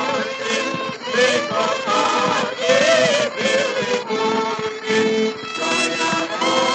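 Ukrainian folk song played from a 1930 Columbia 78 rpm record: a vocal quartet singing in harmony with small-orchestra accompaniment.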